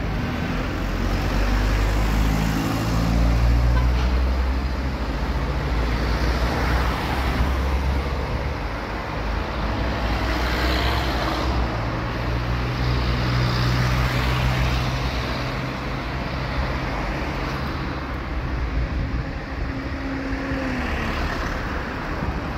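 Road traffic: motor vehicles passing, their engine hum rising and falling, over a steady rush of road noise. A couple of seconds in, one engine climbs in pitch as it speeds up.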